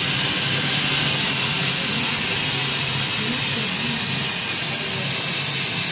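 Storm simulator blasting fan-driven wind of about 30 metres per second with sprayed rain: a loud, steady rushing hiss without letup.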